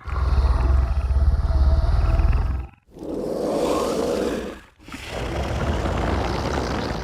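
Xenomorph creature sound effects from the Alien films: a loud, deep rumbling growl lasting about two and a half seconds, followed by two shorter, higher, noisy snarls of about two seconds each, with brief silences between them.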